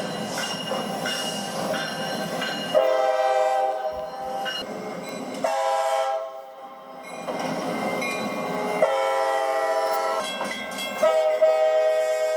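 Train air horn sounding several notes at once in four blasts: a long one about three seconds in, a short one, then two more long ones, the last starting near the end. Between the blasts comes the rumbling noise of the train running.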